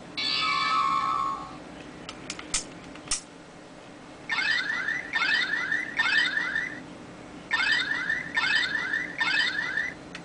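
Electronic sound effects from a Boukenger Accelular toy's speaker: a short steady beep tone, a few sharp clicks, then an alarm-like pattern of rapid rising chirps in two groups of three short bursts.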